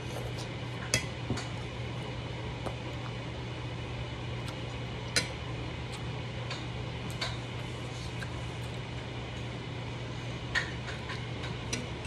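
A metal spoon and fork clicking against a plate of rice a handful of times while eating, over a steady low hum.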